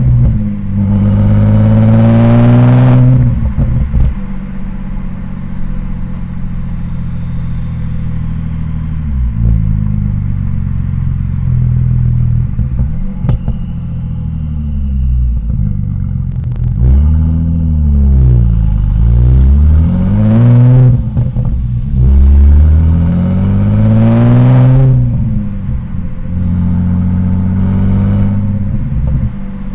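Audi S4 B5's twin-turbo 2.7-litre V6 in light-throttle driving. The revs climb, then the throttle lifts with a falling turbo whistle, and the engine settles into a low steady cruise. Later come several quick rises and falls in revs, and two more climbs, each ending in a falling whistle off-throttle.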